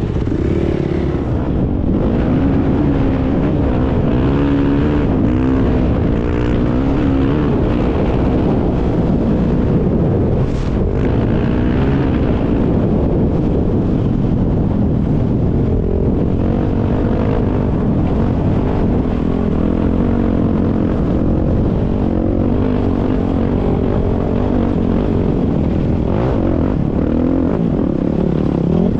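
Dirt bike engine running under the rider, its revs rising and falling as it is throttled up and down along a trail.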